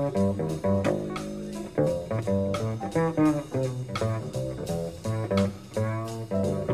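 Upright double bass played pizzicato in a jazz solo: a run of plucked notes in quick succession, a few to the second.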